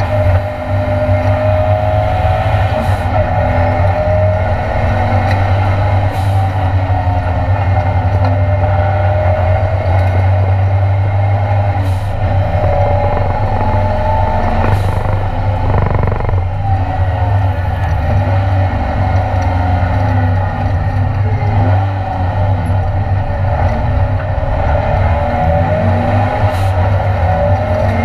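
Ford Escort Mk2 race car's Cosworth engine running hard under racing load, heard from inside the cockpit, its revs rising and falling continuously. There is a strong low rumble beneath it and a few sharp clicks.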